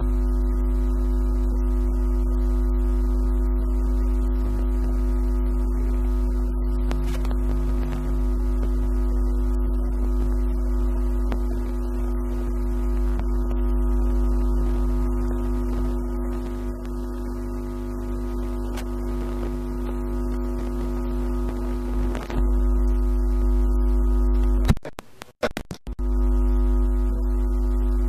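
A loud, steady hum with a deep bottom and a stack of unchanging overtones. It starts suddenly and drops out for about a second near the end before coming back.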